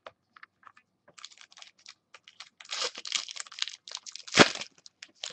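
Crinkling and rustling of trading cards and their wrappers being handled, in many short bursts, with one sharp knock about four and a half seconds in.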